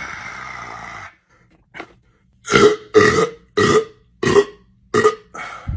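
A person's breathy exhale, then six short, loud throaty bursts in quick succession, like burps or coughs.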